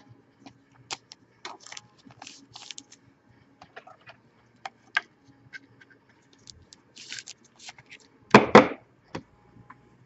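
Trading cards being handled: scattered small clicks and short sliding swishes as cards are picked up, shuffled and set down, with one louder knock about eight and a half seconds in.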